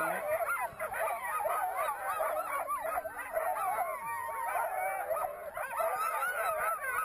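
A chorus of sled dogs yelping, barking and howling together, many overlapping high, wavering calls with no break.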